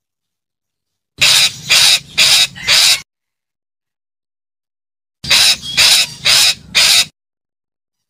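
Red-breasted parakeet calling: two bouts of four harsh, high calls in quick succession, one bout starting about a second in and the other about five seconds in, with silence between.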